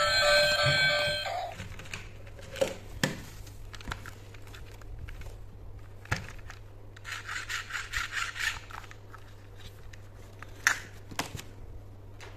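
Background music ending in the first second or two, then a plastic toy car being handled: a few sharp plastic clicks and knocks and, a little past the middle, a quick run of short scraping rubs as its battery compartment is worked open.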